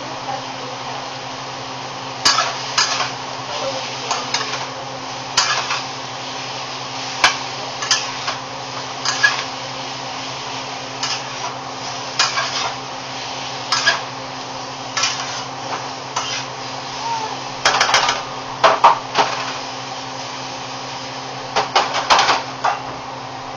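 A cooking utensil scraping and clacking against a metal skillet as sausage and sliced peppers are stirred, in irregular strokes a second or two apart. A denser burst of clatter comes near the end as the pan is lifted and tossed. A steady low hum runs underneath.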